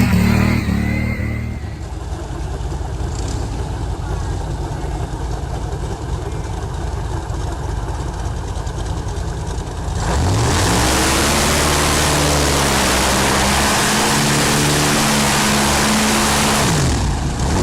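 Motorboat engines running amid water and wind noise. About ten seconds in, a louder clip starts where an engine revs up, holds at high revs with a heavy rush of spray and wind, then drops back near the end.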